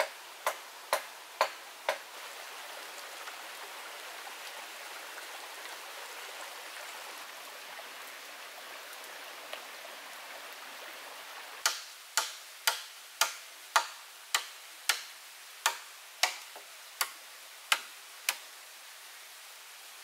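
Repeated sharp strikes of a tool on wood, about two a second, in two runs: five near the start and about a dozen from about twelve seconds in. Between them a steady rush of running stream water.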